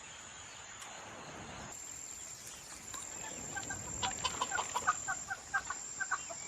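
Young poultry peeping: short, high chirps come in about three and a half seconds in and grow quicker and more numerous toward the end, over a faint steady hiss.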